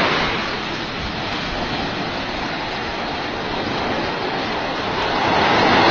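Steady rushing wash of surf on a beach, swelling a little near the end.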